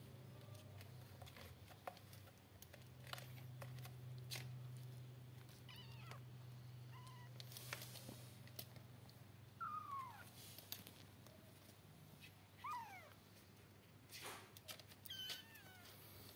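Four-week-old kittens mewing faintly: several short, thin cries that fall in pitch, the clearest about ten and thirteen seconds in, over a low steady hum and a few soft rustles.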